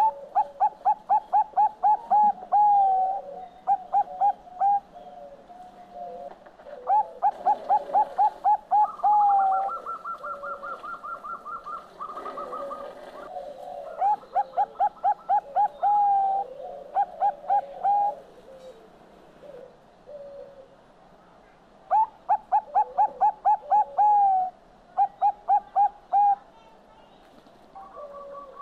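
Caged Thai zebra dove (perkutut bangkok) singing its song: repeated phrases of quick staccato cooing notes that run into a longer drawn-out note, about seven phrases with short pauses between. A higher, faster even trill runs for about three seconds, starting about nine seconds in.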